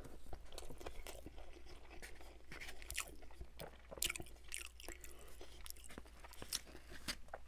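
Close-miked chewing of a mouthful of chicken fried rice, with scattered short clicks and crunches of mouth sounds. A wooden spoon scrapes and scoops rice in a foam takeout container, the louder clicks coming about three and four seconds in.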